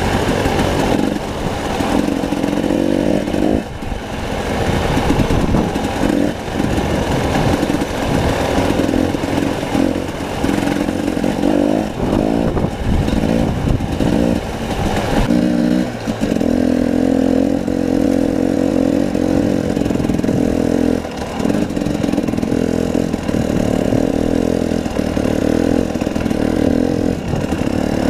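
Dirt bike engine running while riding up a rocky trail. The throttle rises and falls through the first half, then holds a steadier pitch from about halfway on.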